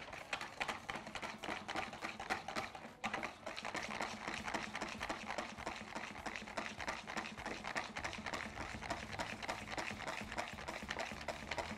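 Wire whisk beating a stiff, thick mayonnaise by hand in a bowl: fast, rhythmic strokes of the wires against the bowl, with a brief break about three seconds in.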